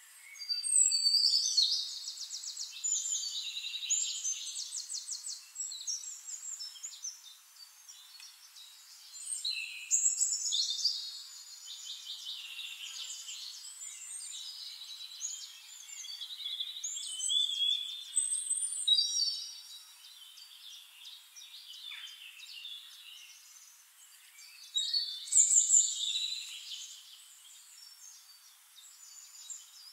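Songbirds singing in repeated bouts of high, rapid trills and warbles, a few seconds apart.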